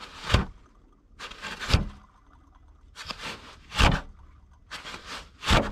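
Worn grooved idler pulley on a 6.0 Powerstroke diesel being rocked and turned by hand, its bearing giving short, rough grinding sounds with clicks about once a second. The bearing has lots of play and is worn out.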